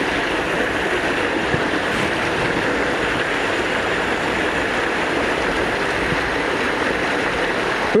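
Water rushing steadily over a small concrete weir and churning in the pool below.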